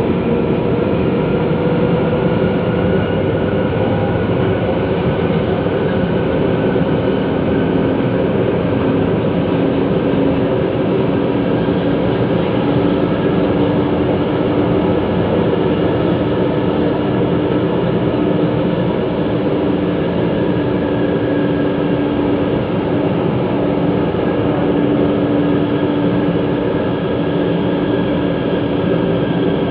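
MRT Line 3 metro train running at speed through a tunnel, heard from inside the car: a loud, steady rumble with a steady whine over it.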